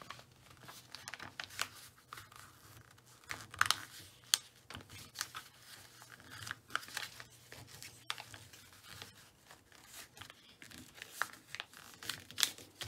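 A sheet of paper being folded and creased by hand into a paper airplane: irregular rustles and sharp crinkles, the loudest about four seconds in.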